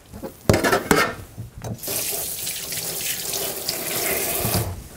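Kitchen tap running into a stainless steel sink for about three seconds, starting a little under two seconds in and shut off near the end. A couple of knocks from handling things come just before it.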